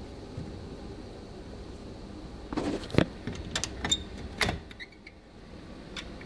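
Rabbit's feet and claws clicking and knocking on the floor of a wooden hutch and wire cage as it moves about: a quick run of sharp taps starting a little over two seconds in and lasting about two seconds, over a low steady hum.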